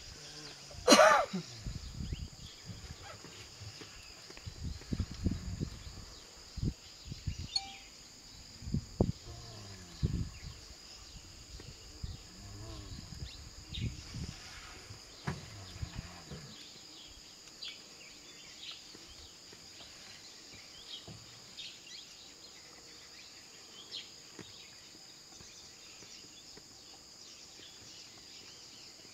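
Outdoor forest ambience: a steady high-pitched drone with faint scattered calls. There is one loud, sharp sound about a second in, and irregular low thumps and rumbles through the first half, which then die away.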